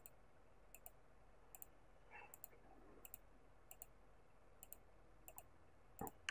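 Faint computer mouse clicks, each a quick press-and-release, about one every three-quarters of a second, as vertices are Shift-clicked one at a time.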